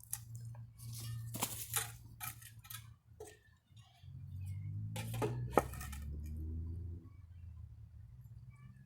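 Scattered knocks and metallic clinks of lumber and tools being handled during the rack build, over a low steady hum; a louder low rumble comes in about four seconds in and stops near seven seconds.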